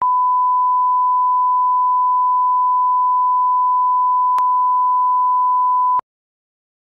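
Steady single-pitch reference tone of a film leader, a pure beep held for about six seconds and cutting off abruptly, with a faint click about four seconds in.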